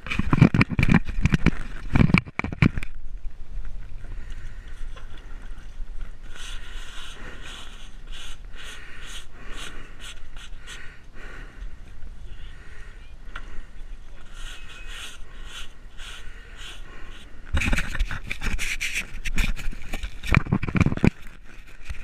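Horse rug rustling and scraping against the microphone as it is handled, in two loud stretches, one at the start and one near the end, with lighter irregular rustles and clicks between.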